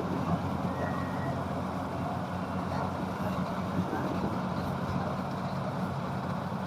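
Rice combine harvester's engine running steadily at a constant speed.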